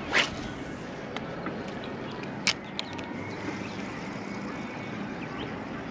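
A few sharp clicks and knocks of fishing gear being handled on a kayak, the loudest just after the start and another about two and a half seconds in, over a steady hiss of wind and water.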